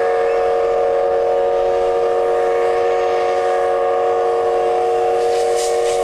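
A steam locomotive's whistle sounding one long, steady blast, several notes at once, over a hiss of steam; rhythmic steam chuffs begin near the end.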